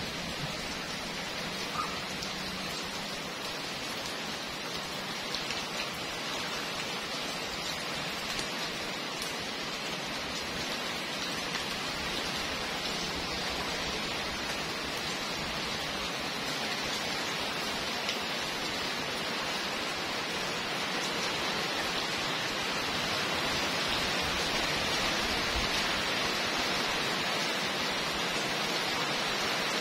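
Heavy rain pouring onto wet street paving, a steady hiss with a few scattered drips, growing a little louder about two-thirds of the way through.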